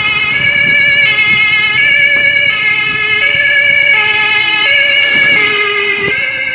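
German fire brigade two-tone sirens (Martinshorn) on responding emergency vans, alternating high and low tones about every 0.7 seconds. More than one siren sounds at once, their tone changes out of step.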